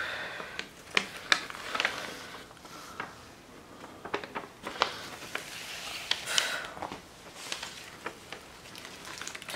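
Plastic-coated sheets of a diamond painting canvas rustling and crinkling as they are unfolded and the protective cover sheet is lifted back, with scattered sharp crackles.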